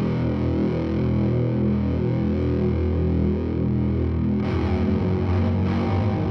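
Distorted electric guitar played through effects pedals, including the Black Fountain oil-can-style delay, in a dense, sustained band arrangement. A brighter, noisier layer joins about four and a half seconds in.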